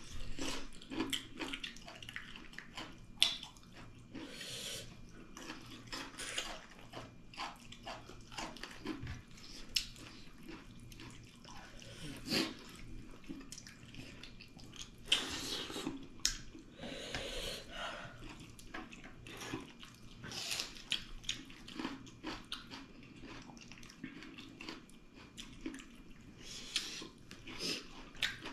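Close-up eating sounds: irregular wet smacks, clicks and chewing as pork trotters and dal with rice are eaten by hand, with a few longer slurping bursts.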